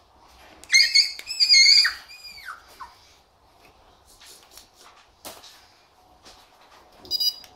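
Kooikerhondje puppy yelping in a quick series of high-pitched cries as the microchip needle goes in under the skin of its neck, the last cry falling in pitch. Two short electronic beeps near the end.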